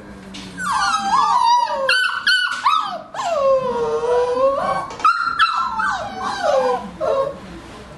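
Four-week-old flat-coated retriever puppies whining and yelping: a run of high, wavering whines, with one longer call about three seconds in that sinks and then rises again.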